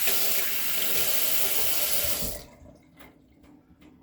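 Kitchen sink faucet running hard as hands are rinsed under it, shut off suddenly about two and a half seconds in, followed by a few faint clicks and knocks.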